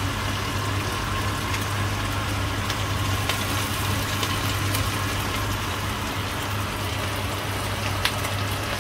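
Fish frying in shallow oil in a pan: a steady sizzle with scattered crackles and pops, over a steady low hum. A sharper click near the end, as a metal spoon lifts the fried pieces out.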